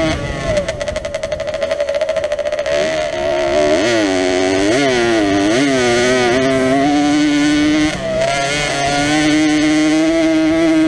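Jawa 50 enduro motorcycle's small two-stroke single engine running at high revs under the rider's throttle. Its pitch drops sharply at the start and again about eight seconds in, and rises and falls several times in quick succession around the middle.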